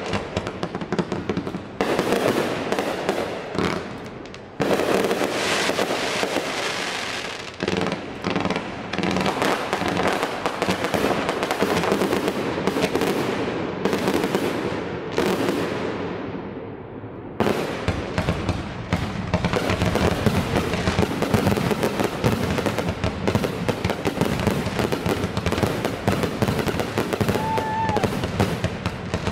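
Fireworks display: aerial shells bursting and crackling one after another. The barrage thins out for a couple of seconds past the middle, then resumes as a dense, rapid run of bangs.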